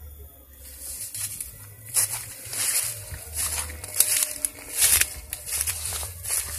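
Footsteps pushing through low leafy undergrowth, leaves swishing and crunching at each stride, starting about half a second in.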